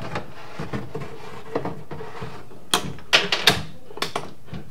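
A Lazy Susan shelf being set into a corner base cabinet, knocking and clattering against the cabinet box in a string of sharp knocks. The loudest knocks come bunched together about three seconds in.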